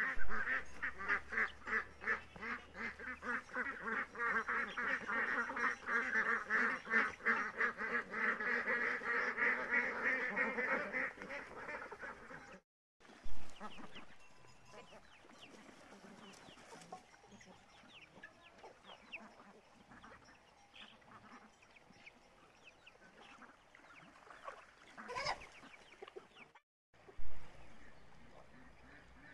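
A flock of domestic ducks quacking loudly and without pause, many calls a second, with chickens among them, for about the first twelve seconds. Then the sound drops sharply to a quiet background with faint scattered bird calls and a short louder call near the end.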